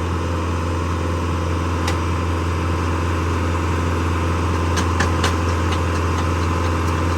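Tractor engine running at a steady speed with an even low hum, with a few light clicks about two seconds in and again around five seconds in.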